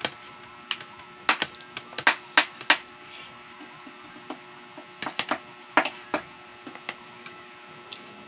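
Close-miked eating sounds of soft cheesy lasagna being chewed: sharp wet mouth smacks and clicks in short clusters, over a steady electrical hum.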